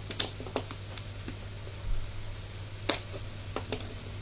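A handful of sharp clicks and short scrapes from a knife and hands on a cardboard gift box as its seal sticker is slit and the lid is worked loose, over a steady low hum.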